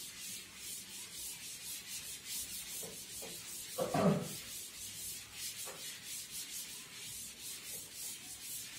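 A duster rubbing a chalkboard clean in quick back-and-forth strokes, several a second, with a steady scratchy swish. A short vocal sound comes about four seconds in.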